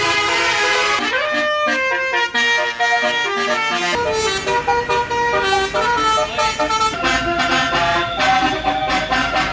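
Basuri multi-tone musical horn on a tour bus playing a tune: a rising glide about a second in, then a run of stepped notes. A low engine rumble joins from about four seconds in.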